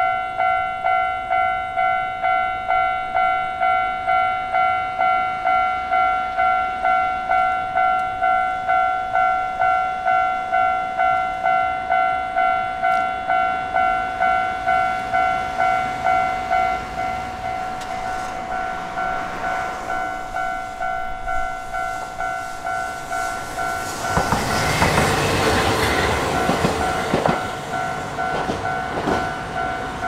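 Japanese level-crossing warning bell ringing steadily, about two strikes a second. From about eighteen seconds in, a Hankai Line tram's running noise rises over the bell, loudest around twenty-five seconds in, then trails off into scattered clicks.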